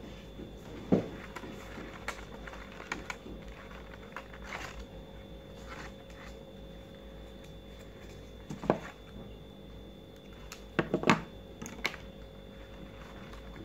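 Paper petals of a large paper flower being handled and pressed into place: scattered light taps and rustles, with a cluster of sharper taps about eleven seconds in.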